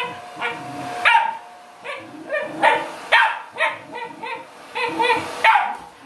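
Fluffy white Spitz-type dog barking over and over, about two sharp barks a second, at a hair dryer held close to it.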